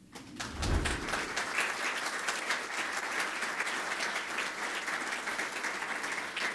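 Audience applauding after a speech: the clapping starts just after the speaker's thanks, builds within about a second and then holds steady.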